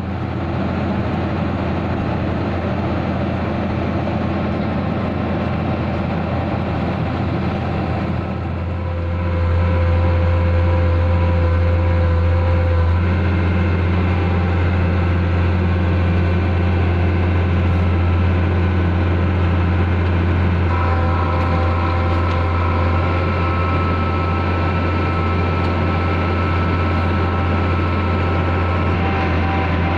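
Diesel engine of road-paving machinery running steadily with a deep hum, getting louder about nine seconds in.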